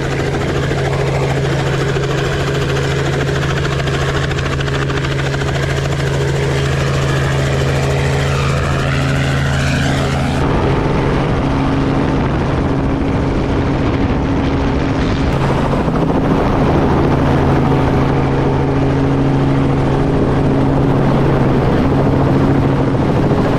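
Helicopter running steadily, a loud continuous rotor and engine hum with a few steady low tones. The sound changes abruptly about ten seconds in, losing its top end while the hum carries on.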